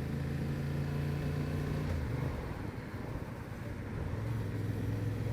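Motorcycle engine, Honda Transalp XL750 parallel twin, running under way. Its note eases off and drops about two seconds in, then builds again a little lower near four seconds.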